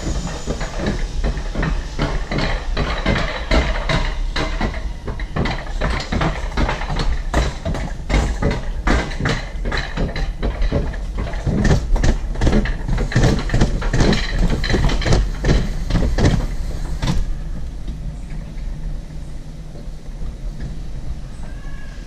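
Rail-guided bobsled car running down a steel-rail track: a steady low rumble with frequent sharp clacks and rattles from the sled on the rails, which stop about seventeen seconds in, leaving a smoother, quieter rumble.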